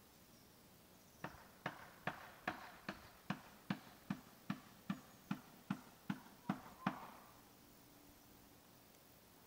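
A quick, even series of about fifteen sharp knocks, roughly two and a half a second, starting about a second in and stopping near seven seconds.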